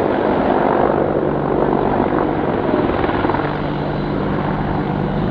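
Boeing AH-64E Apache attack helicopter running, a loud, steady rotor and turboshaft engine drone whose low hum strengthens in the second half.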